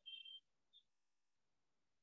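Near silence: room tone, with two faint short high-pitched sounds in the first second.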